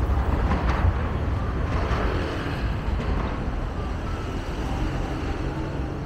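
City street traffic noise with wind rumbling on the microphone, easing off slowly.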